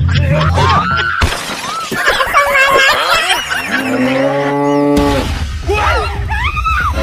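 A cow moos once, one long low call of about a second and a half, a little past the middle. Music with a heavy bass beat plays before and after the moo, and a noisy crash-like sound effect comes just before it.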